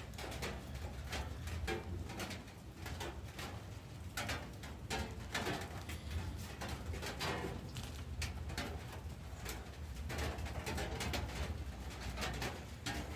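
Small campfire of twigs crackling and snapping in many short, irregular clicks, over a steady low rumble.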